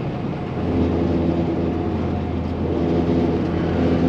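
Kenworth T680 semi truck's PACCAR MX-13 diesel engine droning steadily at highway speed, with road and tyre noise, heard inside the cab; it gets a little louder about a second in.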